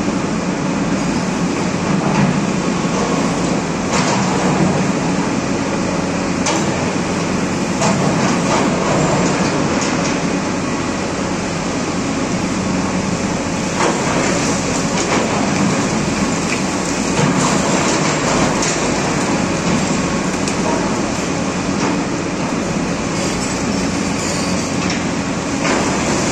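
JCB JS290 tracked excavator working hard digging into broken rock: the engine and hydraulics run loud and steady under load, with the bucket grinding through the stone and an occasional sharp knock of rock against steel.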